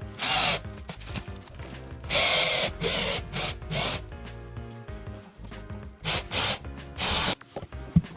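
A power tool run in short bursts, about eight of them in two groups, each under half a second, over background music.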